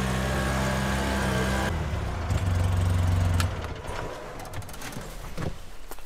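Side-by-side utility vehicle's engine running while driving, dropping to idle about two seconds in and switched off a little past the middle. Then come a few light clicks and knocks.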